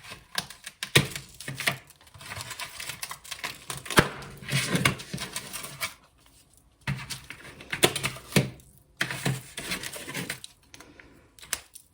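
Hardened nut brittle being snapped by hand into pieces: an irregular run of sharp cracks and clicks, with short pauses about six seconds in and near the end.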